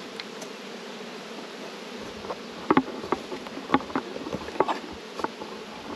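Honeybees buzzing around open hives, a steady hum, with several short, sharp, louder sounds close by from about two seconds in.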